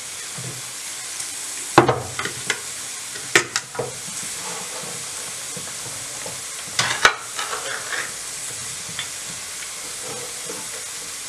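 Onion, chorizo and ham frying in olive oil in a terracotta casserole, a steady sizzle. A few sharp clatters come near 2 s, 3.5 s and 7 s.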